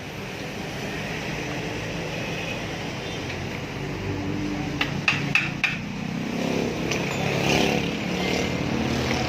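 A motor running steadily, with a few sharp clicks about five seconds in and the running sound growing fuller and a little louder in the second half.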